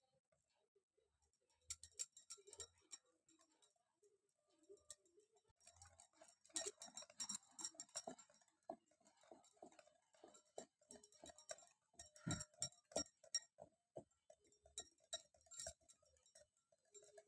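Batter being stirred by hand in a glass bowl: faint clicks and taps against the glass with soft wet mixing, sparse at first and then coming two or three a second from about six seconds in.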